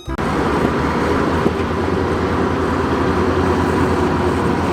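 Steady engine rumble with a fast, even low throb, starting abruptly just after the start and running without change.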